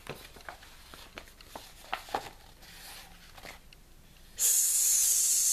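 Paper-page rustle and soft handling clicks from a picture book being turned and held up, then near the end a loud, steady, drawn-out "sss" hiss from the reader, the sound of the letter S, like a snake's hiss.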